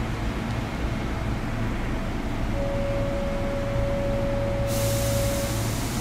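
Inside a Sotetsu 8000 series electric train: the car's steady low hum and rumble. A steady mid-pitched tone comes in about two and a half seconds in and holds for about three seconds. Near the end a hiss starts suddenly and carries on.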